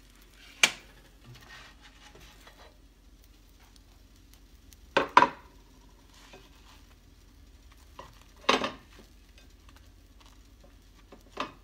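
Metal kitchen utensils, a knife and a spatula, clinking and scraping on a plate while toasted sandwiches are cut. A few sharp clinks stand out: one under a second in, a quick double around five seconds, another around eight and a half seconds and one near the end.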